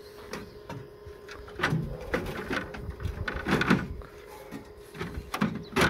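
Front grille of a Ford Econoline van being handled and pressed into place: a string of irregular knocks, clatters and scrapes, loudest around the middle and again just before the end.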